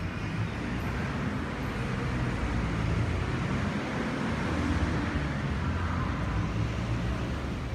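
Steady rumble of city street traffic.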